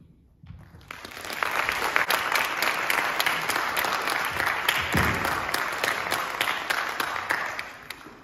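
Audience applauding: the clapping starts about half a second in, is at full strength within a second, and dies away near the end.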